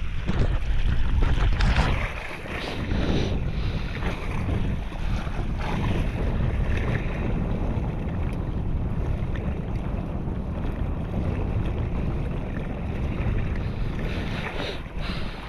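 Wind buffeting the microphone, a steady low rumble that is stronger for the first two seconds, over the wash of water around a small boat.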